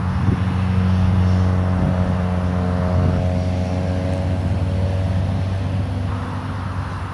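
Jet airliner's engines running as it moves along the runway: a steady low drone with a fainter hum above it, easing off slightly near the end.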